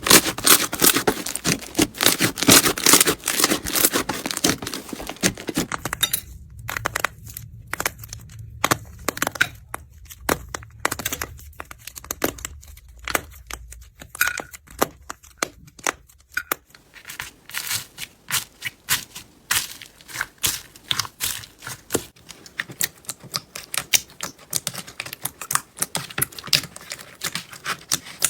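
Slime being squeezed and stretched by hand, with dense crackling and popping for the first six seconds or so, then scattered sharp pops and clicks.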